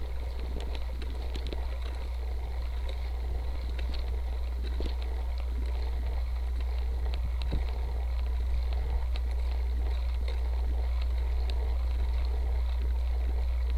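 Steady low wind rumble on the microphone of a camera mounted under the saddle of a cyclocross bicycle riding over grass, with many light ticks and rattles from the bike.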